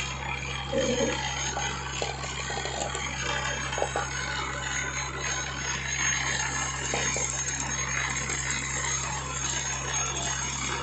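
Vibratory bowl feeder running with a steady low electric buzz, small capacitors rattling along its track, with a few sharper clicks.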